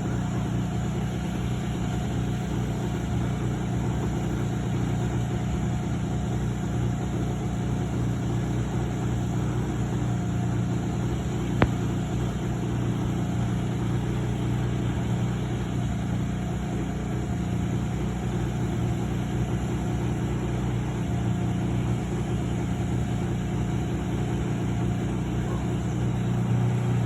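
An engine running steadily at a constant speed, with one sharp click about halfway through.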